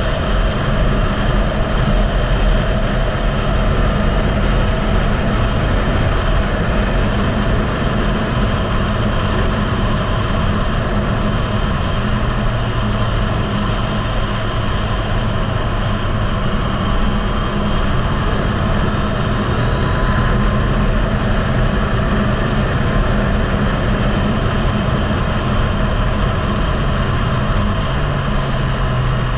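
Yamaha MT-09's inline-three engine running hard at speed on a track lap, its note shifting in pitch a few times as revs change, under heavy wind noise buffeting the microphone.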